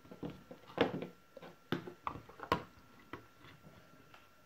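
Hands handling wiring and plastic parts on a wooden workbench: a string of irregular light knocks and clicks with rustling as a plastic double socket and a panel meter are moved and set down. The loudest knocks come about a second in and about two and a half seconds in.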